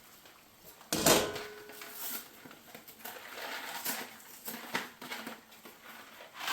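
Kitchen handling noises: a single clank with a brief ringing tone about a second in, then irregular rustling and light knocks.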